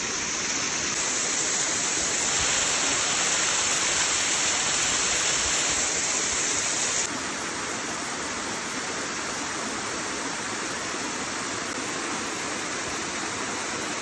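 Rushing water of a fast-flowing stream, a steady dense hiss that turns suddenly quieter, mostly in its high end, about halfway through.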